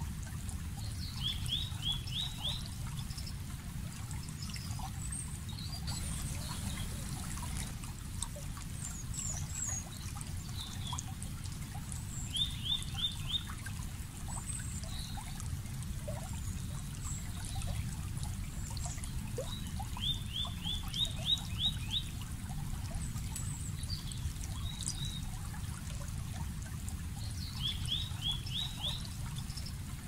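Water trickling and flowing steadily, while a bird sings a short, fast run of rising notes four times, several seconds apart. Other birds chirp faintly and high in between.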